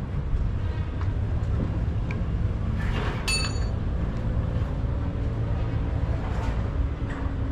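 Steady low rumble of a vehicle engine running, with a single sharp metal clink that rings briefly about three seconds in.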